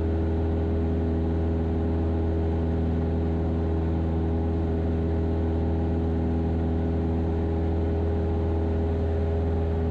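Cessna 172 Skyhawk's piston engine and propeller heard from inside the cockpit in flight, a steady, even drone that holds one pitch with no change in power.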